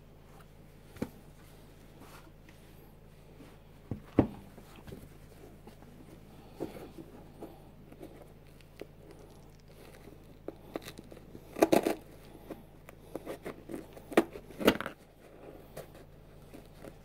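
Hands handling and flexing a worn Nike Air Max 90 sneaker: scattered crackles, rubs and taps of the fabric upper and sole, with the loudest clusters about four seconds in and again in the last few seconds.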